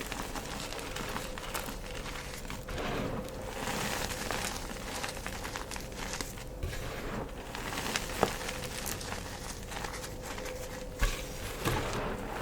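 Gym chalk being crushed and crumbled by hand: continuous dry crunching and crackling, with a few sharper snaps about eight and eleven seconds in.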